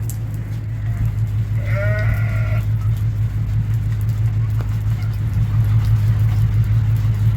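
One bleat from a farm animal about two seconds in, over a steady low rumble.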